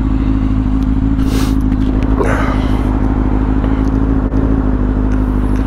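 2010 Kawasaki ZX-6R's 600cc inline-four engine running at steady revs while riding along, with no shifting or revving. Two short bursts of rushing noise come over it, about a second and a half and two seconds in.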